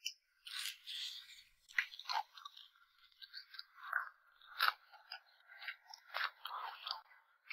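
A person chewing a mouthful of pan-fried flatbread with a crispy crust and a chive-and-egg filling: quiet, irregular crunches and wet mouth sounds, a few sharper crunches among them.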